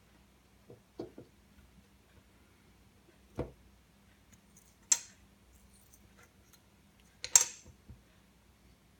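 Small tools and phone parts being handled on a work surface: a handful of separate clicks and taps. The sharpest clicks come about five and about seven seconds in, the later one the loudest.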